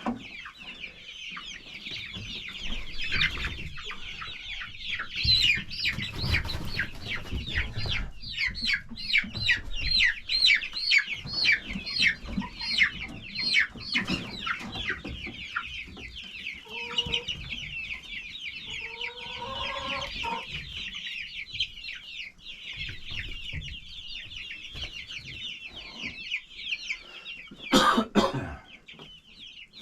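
Chickens calling: a dense chorus of short, high chirps with some lower calls in the middle, and a loud bump near the end.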